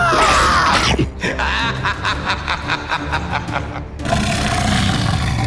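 Background music with a cartoon-style snickering laugh in quick repeated pulses; about four seconds in, a steady motor-like sound takes over.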